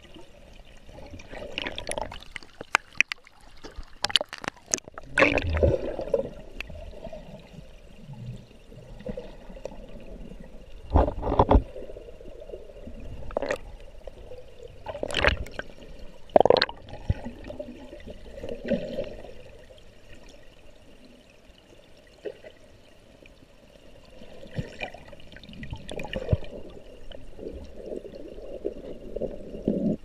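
Water sloshing and gurgling around a submerged camera, the sound heard from underwater: a muffled noise bed broken by irregular surges and bursts, with a cluster of sharp clicks a few seconds in.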